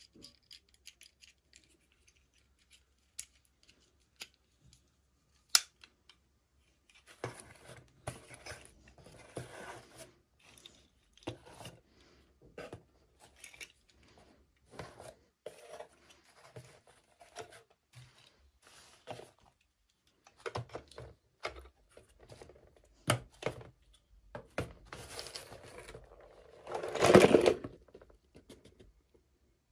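Toy packaging being opened by hand: scattered snips and clicks with short rustles of plastic and card, and a louder rip or rustle lasting about a second near the end.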